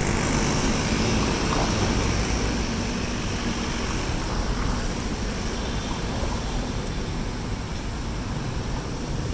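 Busy city street traffic: the engines of a bus, a delivery truck and cars running close by, a steady rumble with road noise that eases a little toward the end.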